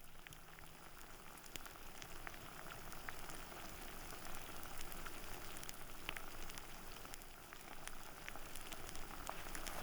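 Food sizzling over a campfire: a steady frying hiss with many small scattered crackles and pops.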